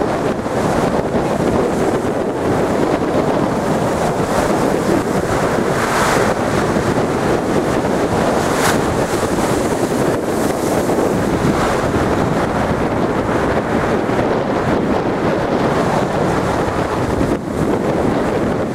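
Strong wind buffeting the microphone over rough, stormy sea surf surging and breaking against a stone sea wall: a steady, loud rush. It grows louder about six seconds in, with a sharp crack near nine seconds.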